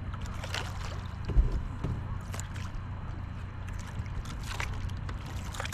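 A boat's motor runs with a steady low hum while the boat moves slowly. About a second and a half in there is one sharp knock, with a few light ticks scattered around it.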